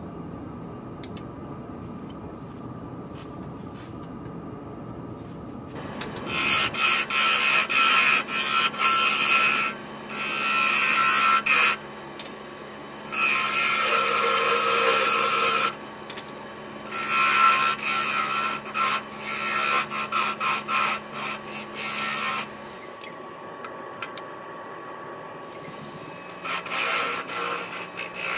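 Carbide turning tool cutting into a spinning ash bowl on a wood lathe: loud scraping bursts of a second or two with short gaps, starting about six seconds in, over the lathe's steady motor hum, with a few more short cuts near the end.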